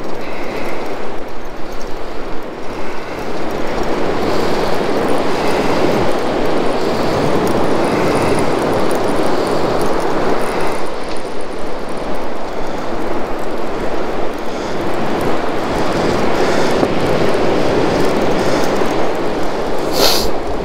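Waves breaking and washing up the beach, a loud, steady rushing that swells and eases every few seconds. There is one sharp click near the end.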